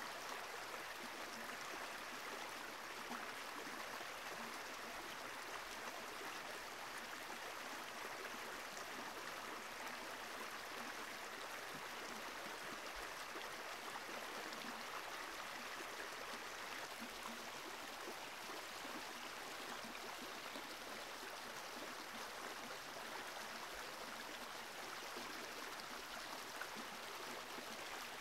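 Steady, even rush of flowing water, with no breaks or distinct events.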